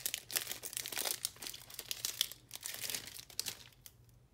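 Foil wrapper of a trading-card booster pack crinkling and tearing as it is worked open with a folding knife, the crackling dying away about three and a half seconds in as the cards come out.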